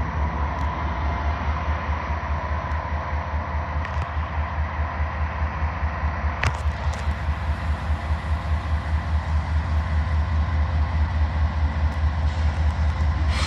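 Diesel locomotive engine running with a steady low throbbing beat, growing slowly louder. A single sharp click sounds about halfway through.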